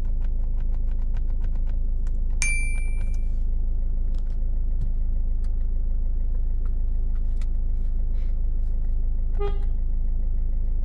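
Steady low hum of a car running, with scattered light clicks, a short high beep about two and a half seconds in, and a brief toot of the Renault Clio 3's horn near the end.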